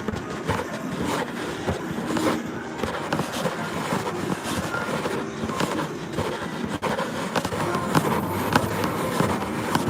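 Busy casino floor ambience: a dense steady din full of small clicks and clacks, with brief electronic tones now and then.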